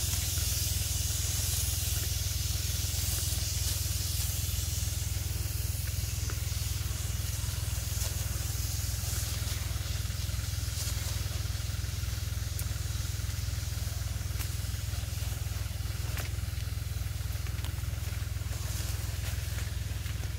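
Tractor-mounted HTP pump sprayer at work: the tractor engine runs steadily, driving the pump, heard as a constant low drone. Over it is a hiss of spray, strongest in the first few seconds.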